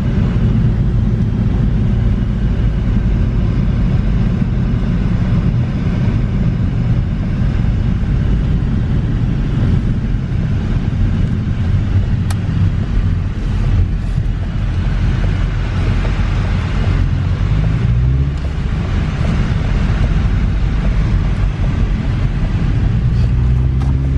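A 2014 Ford Focus's 2.0-liter four-cylinder engine running and tyre and road noise, heard from inside the moving car. The engine note rises once, about two-thirds of the way through.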